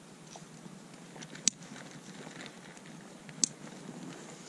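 Two short, sharp clicks about two seconds apart over a faint steady hiss.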